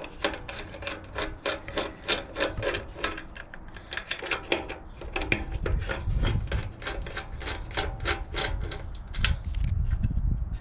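Rapid clicking of a hand tool unscrewing a pair of motorcycle bolts, about four clicks a second, with some duller handling knocks partway through and near the end.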